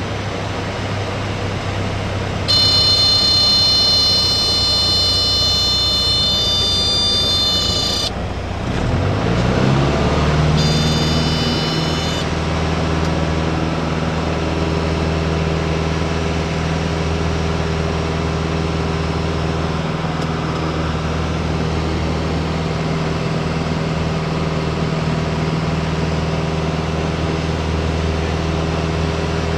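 Piper Tomahawk in a practice stall: the stall warning horn sounds steadily for about five seconds over the low drone of the four-cylinder Lycoming engine at reduced power. The engine note then rises sharply as power is added for the recovery, the horn sounds once more briefly, and the engine settles into a steady higher-power drone.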